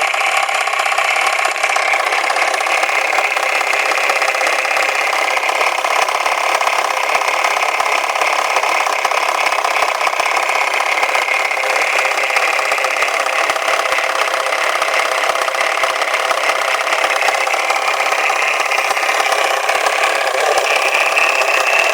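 Volvo 480's B18E four-cylinder engine running with a steady, continuous metallic rattle.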